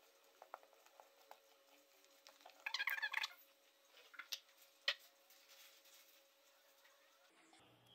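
Very quiet kitchen handling sounds while flour is mixed into bread dough in a bowl: a few faint light clicks and one brief scrape about three seconds in.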